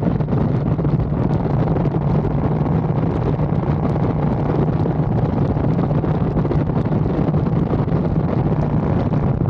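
2022 Harley-Davidson Street Glide Special's Milwaukee-Eight 114 V-twin running steadily at cruising speed, with wind buffeting the microphone.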